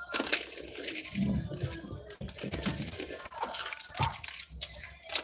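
Crunchy corn snack chips (Takis and Hot Cheetos) being chewed and handled, an irregular run of crunching and crackling.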